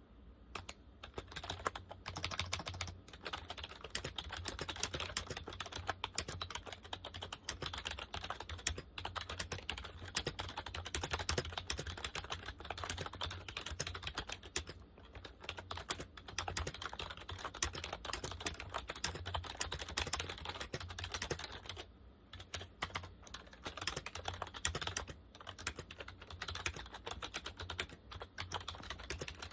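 Compaq KB-3923 rubber dome keyboard being typed on at a fast, continuous pace: dense soft key presses with brief pauses, over a steady low hum.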